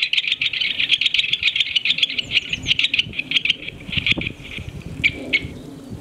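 Great spotted woodpecker giving its rapid chattering rattle call: a fast run of short, sharp, high notes that breaks up into a few separate notes after about three and a half seconds.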